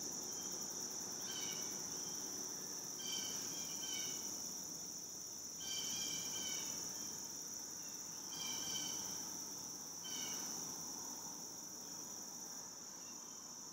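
Steady, high-pitched insect chorus in the woods, with a bird giving short calls every couple of seconds over it.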